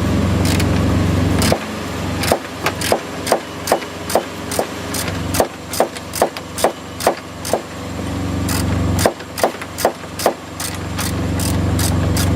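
Ratchet wrench clicking in short, evenly spaced strokes, about two or three a second, as a headlight-assembly mounting bolt is worked loose; the clicking pauses for a moment and resumes briefly. An engine idles steadily behind it.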